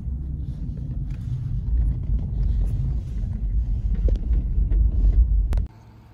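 Steady low rumble of engine and road noise heard from inside a moving car's cabin. It cuts off abruptly near the end.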